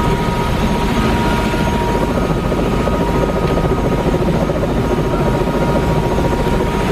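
Helicopter running: a loud, steady rotor and engine rumble, with a faint steady whine that fades about two seconds in.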